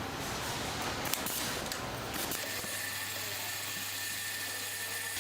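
Factory machinery running, a steady mechanical noise that changes about two and a half seconds in to a steady hum with a constant high whine.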